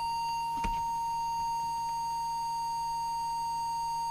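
Steady electronic test tone of about 1 kHz, the kind used to set an FM CB transmitter's deviation, switching on abruptly and holding level, with fainter higher overtones. A faint click comes a little over half a second in.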